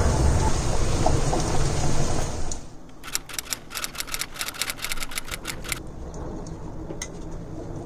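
Spinach sizzling in olive oil in a stainless steel sauté pan, which cuts off after about two and a half seconds. Then a typewriter keystroke sound effect clacks about five times a second for roughly three seconds as a title is typed on.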